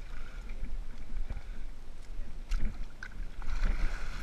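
Shallow water splashing and sloshing as a hooked bull shark thrashes against the angler's hands and arm, with a few sharper splashes in the second half.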